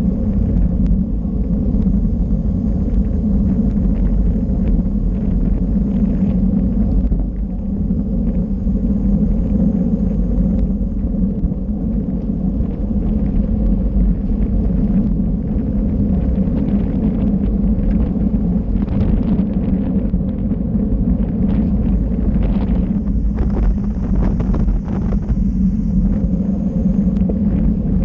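Steady wind rumble buffeting the microphone of a camera riding on a racing bicycle, with faint scattered ticks over it.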